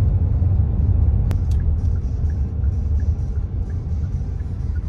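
Car driving, with a steady low road rumble.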